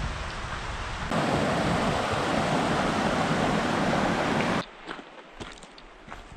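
Mountain stream rushing over rocks: a steady hiss of water that jumps louder about a second in. It cuts off abruptly near the end, giving way to footsteps crunching on a gravel trail.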